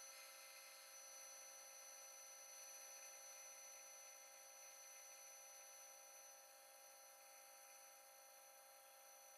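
Metal lathe running a boring cut in hard steel: a faint, thin, steady whine of several constant pitches that never changes, with no rumble or chatter in it.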